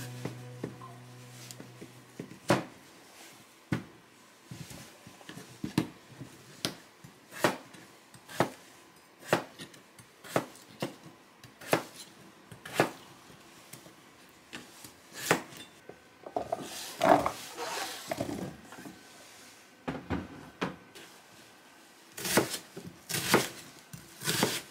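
Chef's knife cutting a peeled potato into chunks on a plastic cutting board: a sharp knock of the blade hitting the board about once a second. Near the end the cuts come closer together as an onion is sliced.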